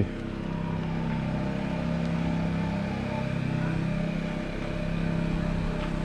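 A steady, low motor hum.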